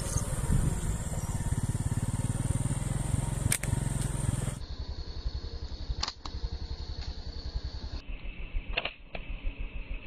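A small engine idling with an even low putter. A few sharp clicks cut in over it.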